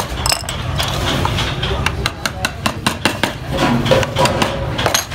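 A wooden mallet tapping a woodcarving gouge to drive it through the wood, in a run of quick, irregular light strikes. Underneath is a steady low rumble.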